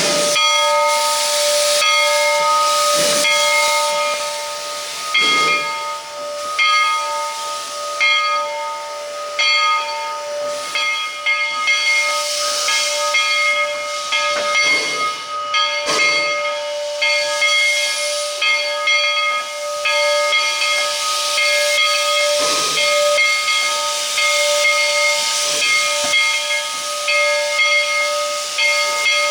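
Steam hissing from a two-foot-gauge steam locomotive, Bridgton and Saco River Railroad #7, with a steady whistling tone held over the hiss. Short, irregular beats come every couple of seconds.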